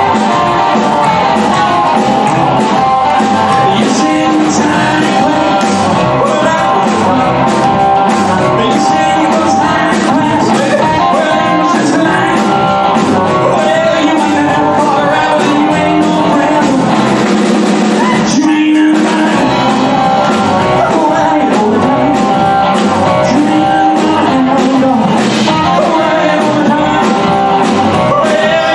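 A live rock and roll band playing with singing, guitars, upright bass and drums together, with a short break a little past the middle.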